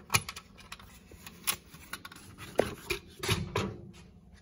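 Tractor air-filter canister being worked open by hand and the filter element pulled out: a series of scattered clicks, knocks and scraping of the housing and its wire clips, with the loudest knocks a little after two and a half seconds and again past three seconds.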